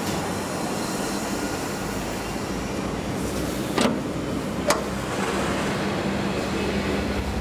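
Steady low mechanical hum over a rumbling noise, with two sharp clicks a little under a second apart about halfway through.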